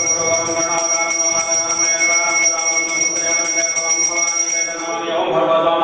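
Puja hand bell rung rapidly and steadily during an aarti, stopping about five seconds in, where a man's chanting voice comes in.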